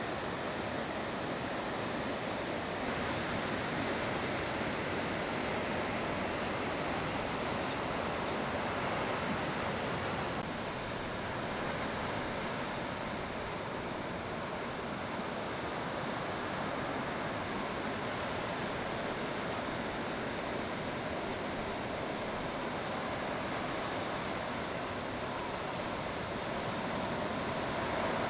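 Ocean surf: a steady rush of waves breaking and washing.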